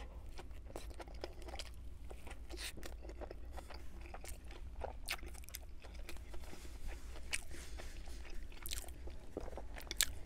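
Close-miked chewing of a large bite of burger: wet mouth clicks and soft crunches.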